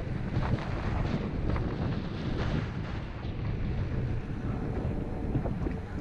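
Wind buffeting the microphone of a camera riding on a moving bicycle: a steady, low, rumbling rush of noise.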